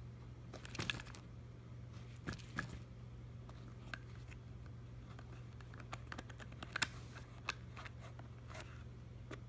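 Scattered light clicks and taps from a hand handling the top hat's electronics, the loudest about a second in and again near seven seconds, over a steady low hum.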